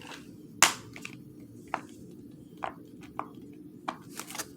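Small plastic fidget toys being handled, giving about seven sharp, irregularly spaced clicks and taps over a low room hum; the loudest click comes just over half a second in.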